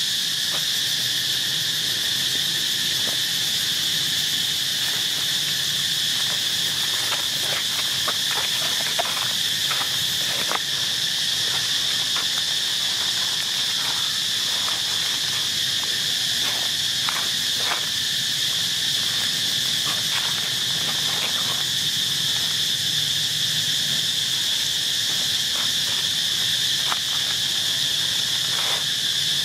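Steady high-pitched drone of an insect chorus, unbroken throughout. Scattered short taps and rustles come through in the middle stretch.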